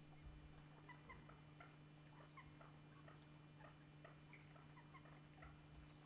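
Faint, many short, high chirps and squeaks from a group of West Indian whistling ducks feeding in shallow water.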